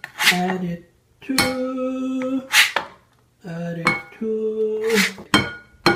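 A kitchen scraper blade knocking and scraping against a ceramic bowl as chopped cilantro is tipped in. There are several sharp knocks, and two of them leave the bowl ringing for about a second.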